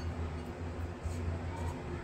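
Faint, soft handling sounds of fingers lifting marinated paneer cubes and pressing them into a plate of flour, with a few light taps, over a steady low hum.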